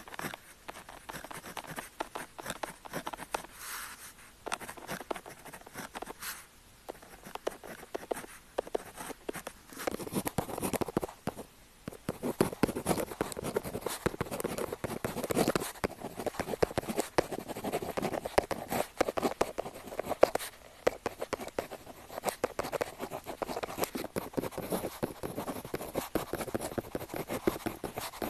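Pen tip scratching across paper in quick writing strokes, lighter at first and louder and denser from about ten seconds in, with a brief pause near twelve seconds.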